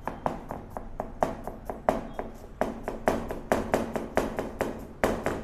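Chef's knife chopping carrot on a plastic cutting board: quick, somewhat uneven knocks of the blade striking the board, about three or four a second.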